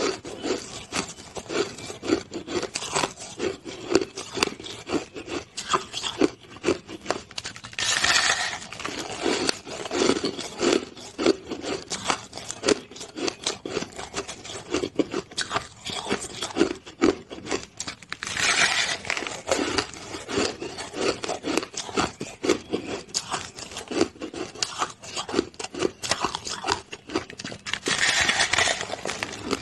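Close-up crunching of hard shaved ice being chewed: a steady run of rapid crisp crackles. Three louder, hissier crunches about ten seconds apart, the last near the end, are fresh bites taken from the mound of ice.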